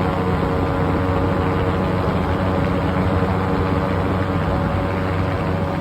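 An engine running steadily, a constant hum with a few steady tones and no change in pitch or level.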